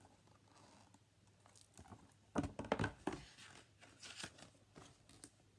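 Paper pages of a picture book rustling and crinkling as the book is handled and its pages turned: a cluster of short crinkles about two and a half seconds in, and a few softer ones around four seconds in.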